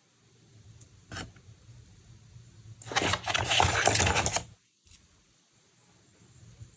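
Unboxing handling noises: a short click about a second in, then a louder rustling scrape lasting about a second and a half, over a low steady hum.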